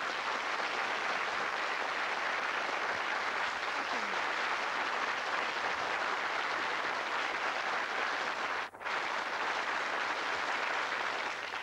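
Studio audience applauding steadily, broken off for a split second about nine seconds in.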